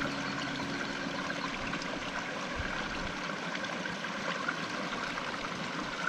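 Mountain stream water flowing, a steady even rush.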